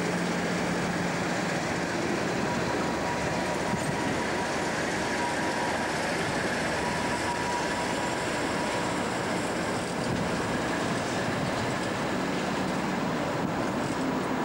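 Class 56 diesel-electric locomotive passing close by with a freight train, its Ruston-Paxman 16-cylinder engine running steadily, with a thin whine from about two seconds in to about nine. The freight wagons rolling past on the rails follow.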